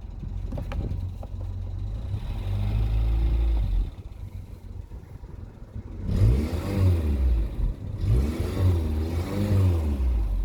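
Talbot Express van's petrol engine running and being revved: the revs rise about two seconds in and drop back near four seconds, then two more wavering rev-ups follow. The engine is misfiring while cold.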